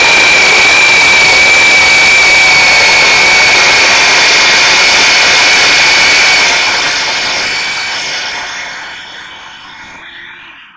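Worx WG322 20 V cordless brushed-motor chainsaw cutting through a wet 4-by-4 inch timber, a loud, steady high-pitched whine that fades away over the last few seconds.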